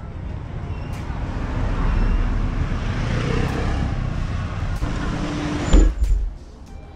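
A motor vehicle passing close by on the road, its noise swelling and then easing off, with a sudden heavy low thump near the end.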